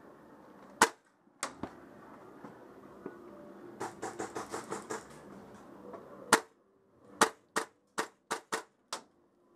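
Airsoft rifle firing single shots as sharp cracks: three in the first two seconds, then seven in quick succession over the last three seconds. Around the middle there is a quicker, fainter rattle of about eight shots.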